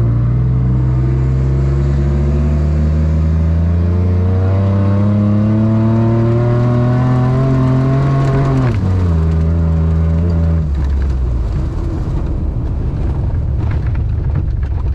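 A vehicle's engine revs up sharply and pulls hard under full throttle. Its pitch climbs steadily for about eight seconds. The throttle then comes off and the engine drops to a lower steady note for about two seconds before falling away to a rough rumble of coasting noise.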